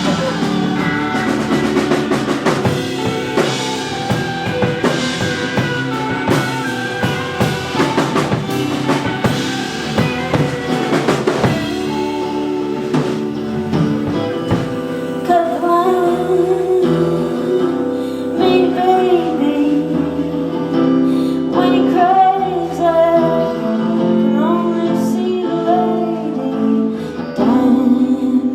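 Live rock band playing a song: drum kit, guitars and a singing voice. The drums and cymbals are busy for the first dozen seconds, then thin out and the vocal line comes forward.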